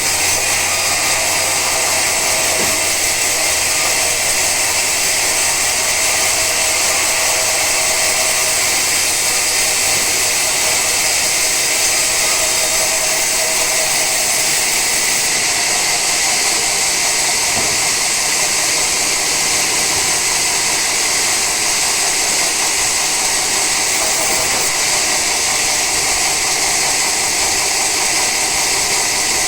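Sawmill saw running through a teak log, a loud, steady high-pitched hiss without a break; a low hum underneath drops out about a third of the way in.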